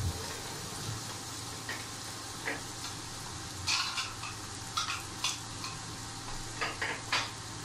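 Fried small shrimp and onions sizzling in a nonstick frying pan on residual heat after the stove is switched off, while a wooden spatula stirs and scrapes them: a steady hiss with short scrapes about halfway through and a quick cluster near the end.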